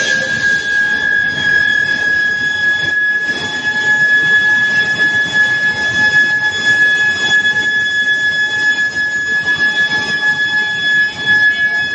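Billet reheating induction furnace running, its coil giving a steady high-pitched whine over the noise of the working machinery.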